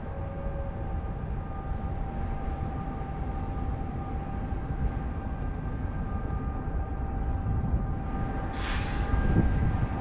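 Steady mechanical rumble with a constant hum. A brief hissing burst about nine seconds in is the loudest moment.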